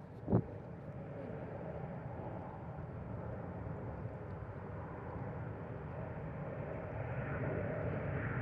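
Boeing 777 jet engines on approach, a steady rumble that grows slowly louder, with a faint higher whine near the end. A brief thump about a third of a second in.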